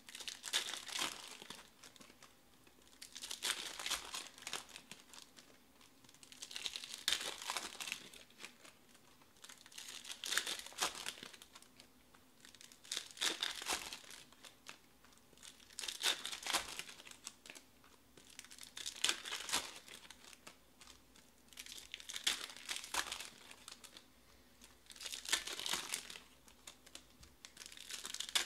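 Foil trading-card pack wrappers crinkling and tearing as packs are opened and handled, in bursts about every three seconds.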